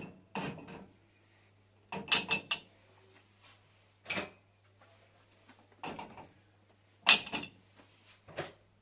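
Cups being set one after another into a dishwasher's upper rack: about six separate short clinks and clatters of crockery against the rack and each other.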